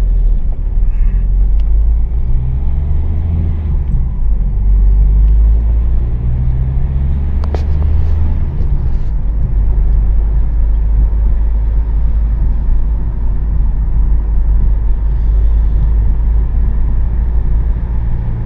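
Car interior noise while driving: a steady low rumble of engine and tyres on the road, with the engine hum shifting a few times in the first half and a single sharp click about seven and a half seconds in.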